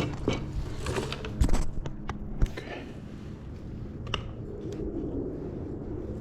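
Hand tools working a tight tire bead onto a wheel rim: a string of sharp knocks and clicks of metal on the rim and rubber, the two loudest about one and a half and two and a half seconds in.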